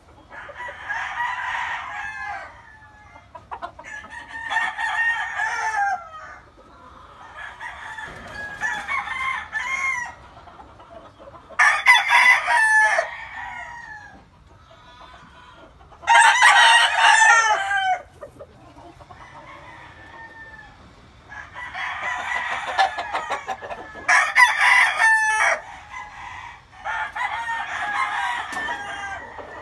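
Game roosters crowing again and again, about eight crows of roughly two seconds each. Some are much louder and closer than others, the loudest about a third of the way in, a little past halfway, and again near the end.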